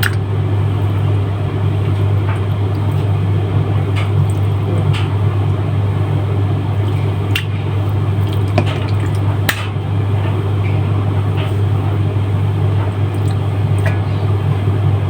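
Wet squishing and a few light clicks as raw chicken breast is handled and turned in a white wine and black pepper marinade, over a steady low hum.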